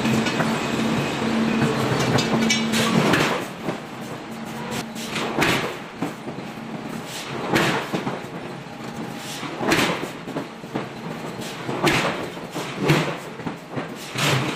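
A steady machine hum that stops about three seconds in, then heavy metallic blows about every two seconds as a punch is driven down through stacked steel spacer plates into a glowing hot-forged steel ring.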